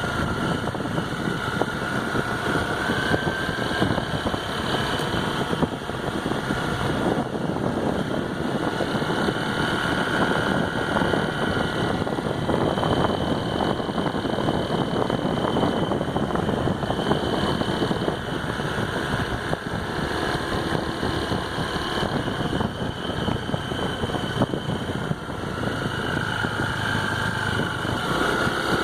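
2016 Honda PCX scooter's single-cylinder engine running steadily, with a tinny metallic rattle like banging tin, the noise the owner hears only under throttle and that stops when he lets off.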